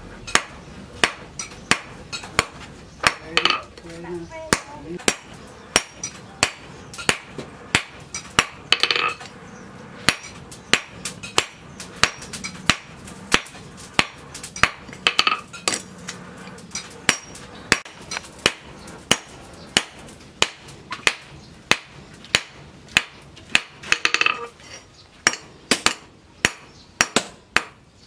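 Hand hammer forging a red-hot axe head held in tongs on a steel post anvil: a steady run of metallic blows at about two a second.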